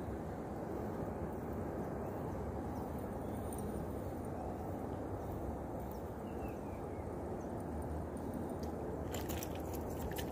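Steady low background noise with no clear source, with a quick run of sharp clicks about nine seconds in.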